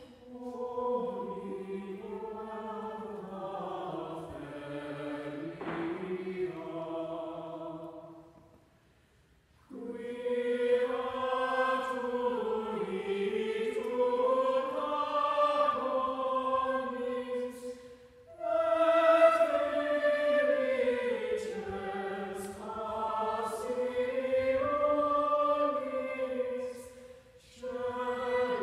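Mixed choir of men and women singing a cappella, a chant melody in long flowing phrases. The singing breaks off for about a second roughly eight seconds in, and pauses briefly twice more, near the middle and near the end.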